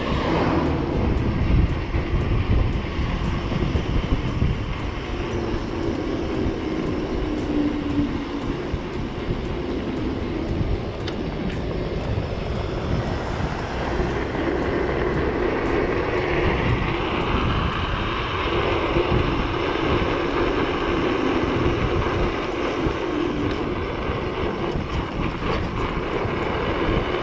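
Electric bike with a 1500 W rear hub motor being ridden: wind rumbling on the microphone and tyre noise on the road, with a motor whine that rises in pitch about 15 seconds in.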